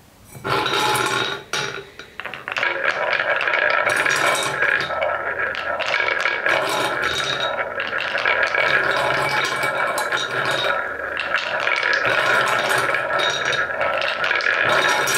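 Painted wooden balls rolling and clattering around the wooden bowl of a beech-wood marble run, a steady rolling rattle with clicks as the balls knock together. It starts about half a second in, breaks off briefly near the two-second mark, then runs on without pause.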